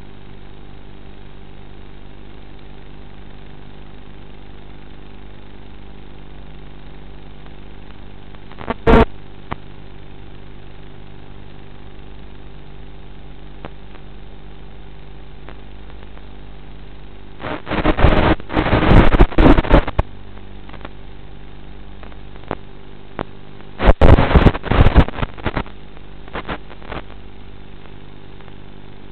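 Electric motor and propeller of a TBS Caipirinha flying wing running at a steady pitch in flight. It is broken by loud crackling bursts: one brief burst about a third of the way in and two longer clusters in the second half.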